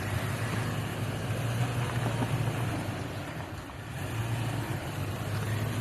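Toyota Tacoma pickup's engine running at low speed as the truck crawls over a trail obstacle, a steady low drone that eases off briefly a little past halfway and then picks up again.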